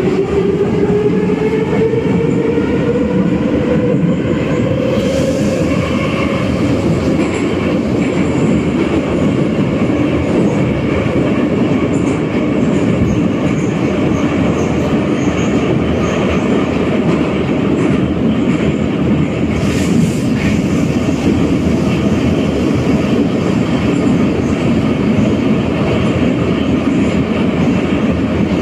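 Metro train heard from inside the passenger car: the motor whine climbs over the first few seconds as the train picks up speed, then a steady loud rumble of wheels and running gear carries on.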